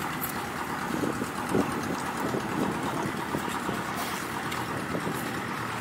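Steady wind rumble on the microphone.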